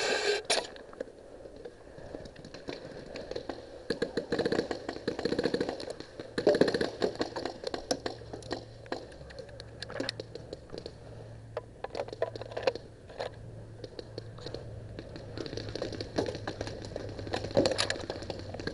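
Clothing and gear rustling and scraping against a body-worn camera, with many scattered sharp clicks and cracks. A faint low steady hum comes in about eight seconds in.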